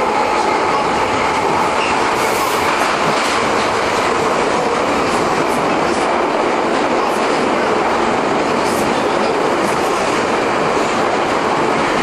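London Underground train running, heard from inside the carriage: a steady rumble and rattle of wheels on track, with light clacks. A faint high wheel squeal fades out about two seconds in.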